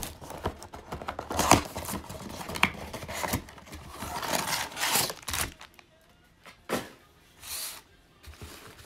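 A cardboard trading-card blaster box being torn open by hand and its foil packs handled: a dense run of tearing, crinkling and sharp clicks for about five seconds, then a couple of brief rustles.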